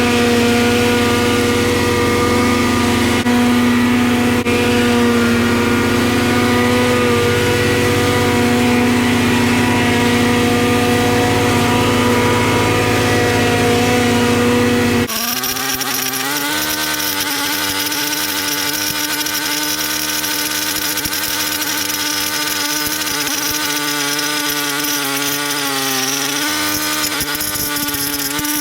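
Small lawn mower engine running steady under load. About halfway through it cuts abruptly to a different engine sound with a higher, wavering pitch.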